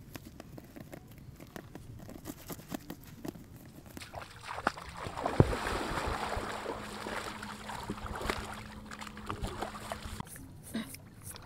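Faint rustling of leaves and handling for the first few seconds, then water splashing and sloshing as people wade through shallow river water, with one sharp splash about five seconds in. The splashing stops shortly before the end.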